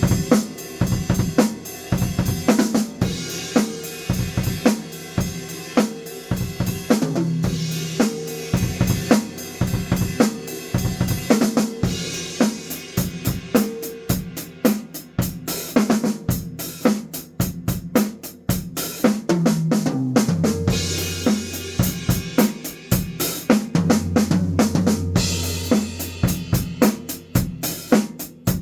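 Yamaha five-piece acoustic drum kit played in a continuous freestyle groove: kick drum, snare, toms, hi-hat and crash cymbals, with tom fills between beats.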